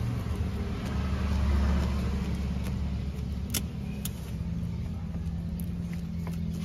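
Kitchen scissors scraping the scales off a tilapia, heard as a few sharp metallic clicks and scrapes, the clearest about three and a half and four seconds in. Under them runs a steady low motor-like hum.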